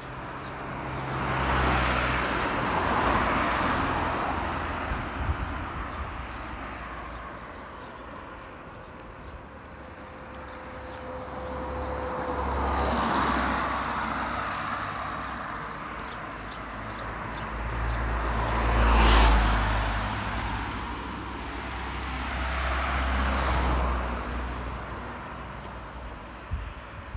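Cars passing by on a road, about four of them, each swelling up and fading away with a low engine and tyre rumble; the loudest passes close by about two-thirds of the way in.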